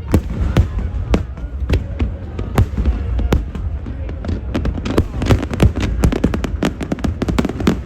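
Fireworks display going off in a loud, irregular barrage of sharp bangs over a continuous low rumble, the bursts coming thickest about two-thirds of the way in. Crowd voices are faint underneath.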